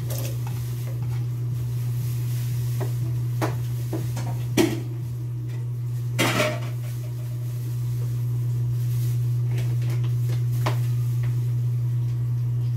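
Scattered knocks and clinks of a container and utensil against a large metal wok as chopped garlic and onion are put into coconut milk. The loudest knock comes about four and a half seconds in, followed by a short clatter around six seconds in, over a steady low hum.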